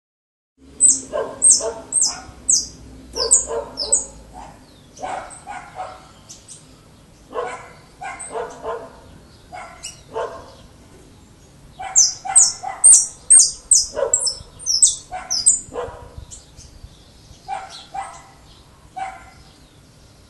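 Saffron finch singing the 'mecánico' song used to tutor young finches: two bursts of rapid, very high, sharp notes, one near the start and another about twelve seconds in, with lower, shorter notes scattered in between.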